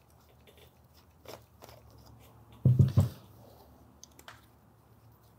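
Hand disassembly of a Graco Fusion PC spray foam gun handle: small clicks of metal and plastic parts as the safety stop assembly is worked off the back, with a short cluster of louder knocks about halfway through.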